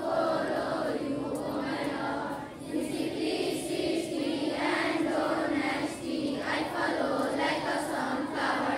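A large group of schoolchildren singing a morning prayer together in unison, with held notes and short breaks between phrases.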